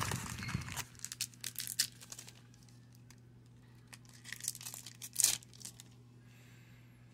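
Foil wrapper of a baseball card pack crinkling and tearing as it is opened. The crackling is dense for the first two seconds and comes again about four to five seconds in, with one sharp crackle near the end of that burst.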